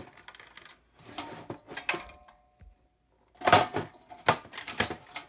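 A satellite receiver's plastic front cover being worked loose from its metal chassis and handled: a series of clicks, snaps and clattery knocks, the loudest about three and a half seconds in.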